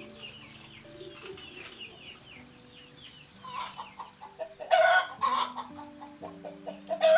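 Chickens clucking, with two loud bursts of hen cackling, one about five seconds in and one at the very end. High, falling chirps come in the first three seconds.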